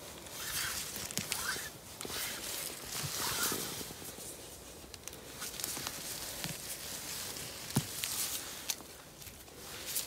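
Irregular rustling and snapping of grass, moss, pine needles and dry leaves as a hand works through the forest floor picking mushrooms, with footsteps.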